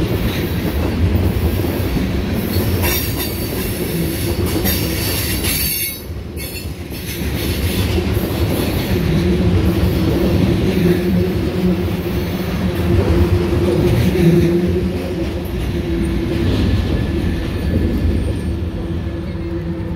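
Loaded ethanol tank cars of a freight train rolling past on a curve: steel wheels rumbling and clicking over the rails, with a steady squealing whine from the wheels. The sound dips briefly about six seconds in.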